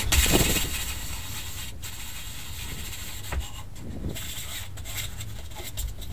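A rag rubbing teak oil into a wooden piece held in a vise, a steady rustling wipe, with a louder handling knock at the very start.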